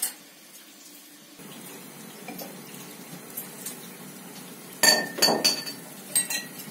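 A tap running water, starting suddenly about a second in, with a cluster of dishes clinking about five seconds in.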